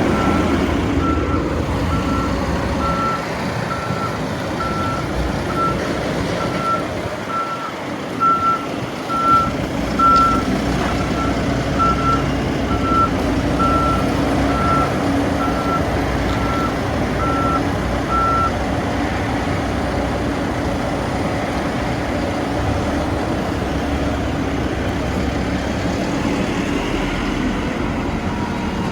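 Lonking 84C backhoe loader's Perkins diesel engine running steadily, with its reversing alarm beeping about twice a second while the machine backs up; the alarm stops about two-thirds of the way through. A few louder knocks come about a third of the way in.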